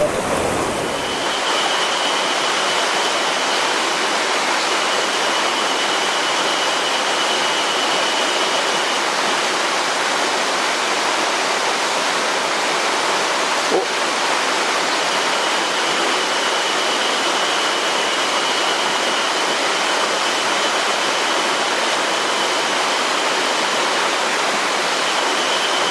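Mountain stream rushing over rocks: a steady, even rush of flowing water. A thin high tone comes and goes over it several times, and there is a single short click about 14 seconds in.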